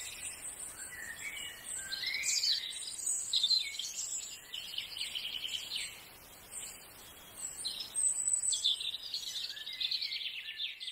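Several birds chirping and singing together, many short high calls and trills overlapping, with a brief lull about six seconds in.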